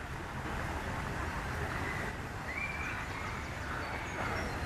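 Outdoor pond-side ambience: a steady low rumble with faint, short high chirps of small birds, and a brief rising call about two seconds in.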